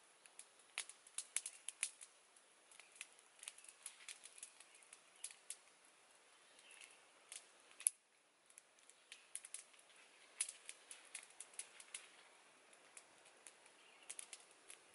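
Small wood fire crackling: irregular sharp pops and ticks from burning twigs, with one louder pop about eight seconds in.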